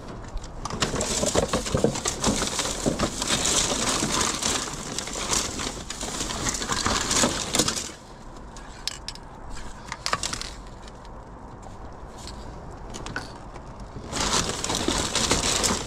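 Rummaging through discarded items: a dense crinkling, rustling noise of bags and things being handled and shifted. It drops to a quieter stretch with a few clicks and knocks from about 8 s to 14 s, then the rustling picks up again.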